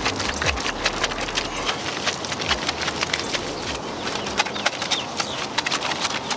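Wet chenille wash mitt scrubbing a soapy, foam-covered chrome wheel: a dense, irregular run of wet clicks, squelches and crackling foam.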